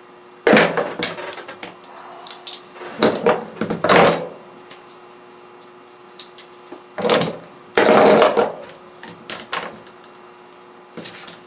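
Tools and parts being handled on a workbench while a thermostat housing is taken apart: four spells of clattering knocks and scrapes, over a faint steady hum.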